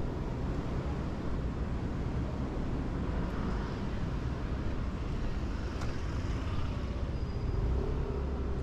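Steady low traffic noise of a busy city street, with one brief click about six seconds in.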